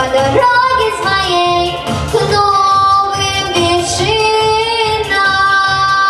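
A girl singing a song with long held notes and vibrato over backing music with a steady beat.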